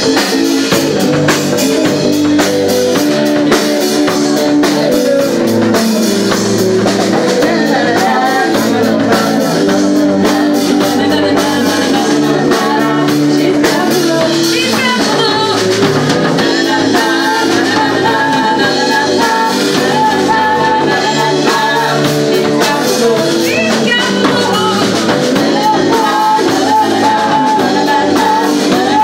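Live rock band playing: a woman sings lead into a microphone over electric guitars and a drum kit, the sung melody coming to the fore about eight seconds in.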